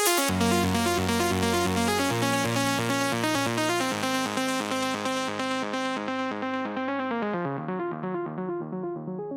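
Electronic dance music outro: the drum beat drops out and a fast synthesizer arpeggio plays over held bass notes that change every couple of seconds. Its brightness is gradually filtered away and the volume slowly fades.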